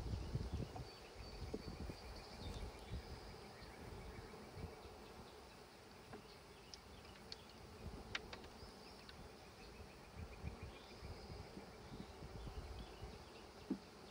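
Faint buzzing of a cloud of honeybees flying around an open hive just stocked with a package of bees, with a few light sharp clicks of wooden frames being set back into the hive body about halfway through.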